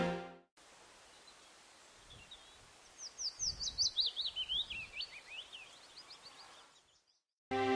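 A bird singing a quick run of high notes, each sliding downward, the run as a whole falling in pitch, followed by a fainter run of notes; low outdoor background hiss.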